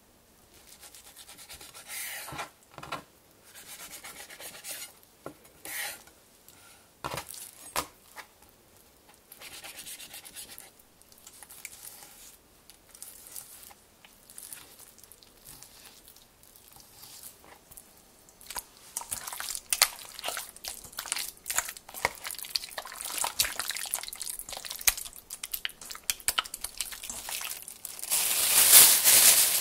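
Food-prep handling sounds: first scattered scrapes and taps of utensils on a bowl and a knife working raw chicken on a wooden cutting board. After that comes steady rustling and squishing as hands move marinated chicken into a plastic bag, with the crinkle of the bag loudest near the end.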